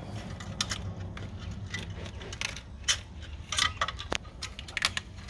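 Metal hand tools and bolts clinking and tapping irregularly against the intake manifold and engine parts as the manifold is bolted back on, over a low steady hum.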